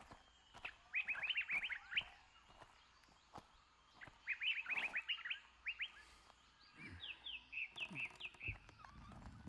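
Songbird singing: three runs of quick, sharp falling chirps, each lasting about a second, at the start, middle and later part. A low rumbling starts near the end.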